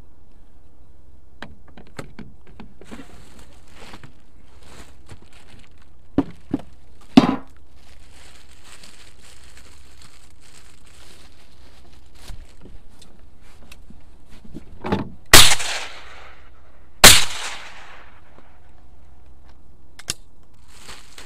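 Two shotgun shots about a second and a half apart, each a loud sharp bang with a short echoing tail, with a few smaller knocks some seconds before them.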